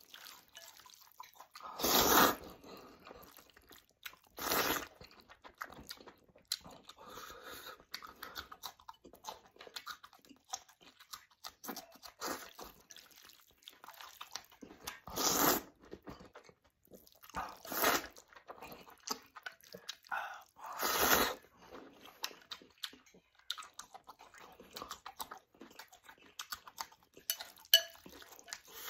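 Close-up eating of zhajiangmian noodles with chopsticks: about five loud slurps of noodles spread through, with chewing and crunching and small clicks of the chopsticks against the bowl in between.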